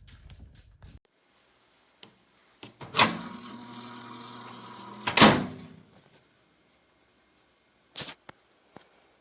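RCA 0.9 cubic foot countertop microwave oven: a loud clunk, then the oven runs with a steady hum for about two seconds. A second clunk, likely its door being opened, cuts the hum off. A few sharp clicks from the door or controls come near the end.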